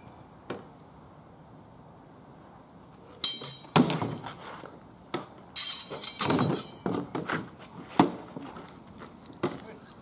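Swords clashing and striking round shields in a sparring exchange: a flurry of sharp knocks and clinks starting about three seconds in, some with a short metallic ring, then two single hard hits near the end.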